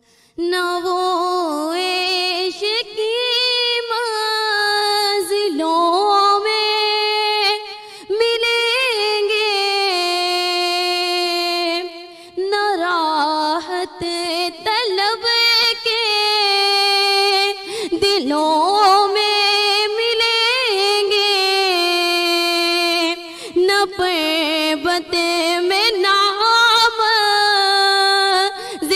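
A woman singing a naat solo into a microphone, in long phrases of wavering, ornamented held notes, with short breaks for breath between phrases.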